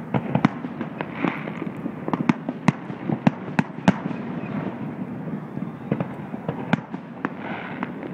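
A fireworks display: shells bursting with many sharp bangs and crackles in quick, irregular succession.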